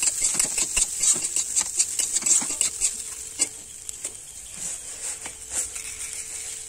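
Metal spatula scraping and tossing flattened rice (chire) with vegetables in a metal kadai: quick repeated scrapes for about the first three seconds, then only a few. A steady frying sizzle runs underneath.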